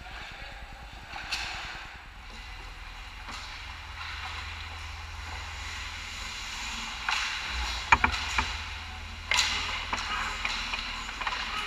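Ice hockey play: skate blades scraping and carving the ice, with sharp clacks of sticks and puck. The loudest comes about eight seconds in and another just after nine seconds. A steady low hum runs underneath.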